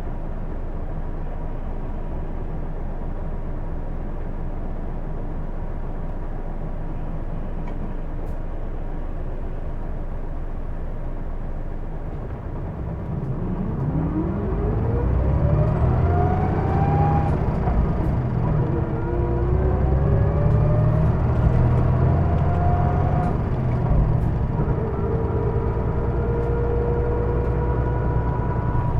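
Hino Blue Ribbon II city bus heard from inside: the diesel engine idles steadily, then about twelve seconds in the bus pulls away and the engine revs up through the gears. A whine climbs with each gear and falls at each shift, the odd noise this bus is known for.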